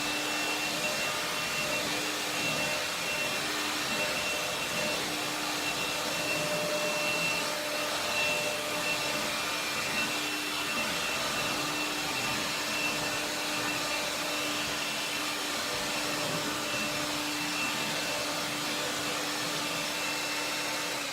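Electrolux Ergorapido cordless stick vacuum running steadily over a hardwood floor, a constant motor whine over airflow hiss, winding down at the very end.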